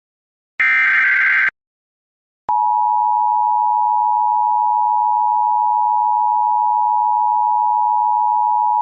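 Emergency Alert System tones. The last of three short SAME header data bursts comes about half a second in. After a second of silence, the steady two-tone EAS attention signal (853 and 960 Hz) starts and holds, marking the start of a new alert.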